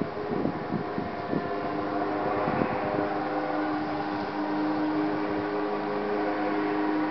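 Wind buffeting the microphone in gusts, giving way from about two seconds in to a steady machine drone with several held tones.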